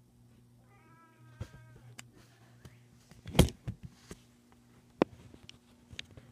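A pet's short, wavering high-pitched call about a second in, then a loud sharp knock in the middle and a few fainter clicks, over a steady low electrical hum.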